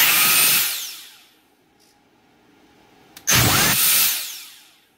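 Dyson DC58's brushless vacuum motor, run bare off a battery pack, spinning up twice about three seconds apart. Each time it whines at full speed for about half a second after a sudden start, then winds down with a falling whine as power is cut.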